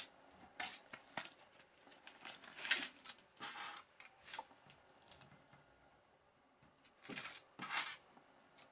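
Tabletop handling sounds: a steel tape measure pulled out and laid against thin stainless steel wire cables, with scattered clicks, scrapes and short rustles as the cables and tape are moved, the busiest clusters a couple of seconds in and near the end.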